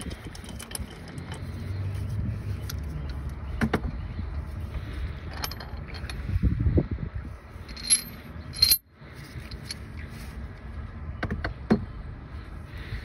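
Metal hand tools clicking and clinking: a socket and extension being turned and worked off the crankshaft pulley bolt of a BMW M47 diesel. Scattered sharp clicks, with two bright ringing metal clinks about eight seconds in, over a low steady hum.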